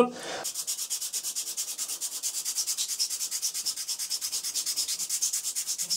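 Bicycle disc brake pad being sanded on 150–200 grit sandpaper on a flat tile, in quick, even back-and-forth scraping strokes, several a second. This resurfaces a pad fouled by brake oil.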